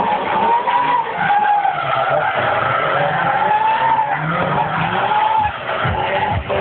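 Car drifting in tyre smoke: its tyres squeal in long, wavering screeches over the engine running hard.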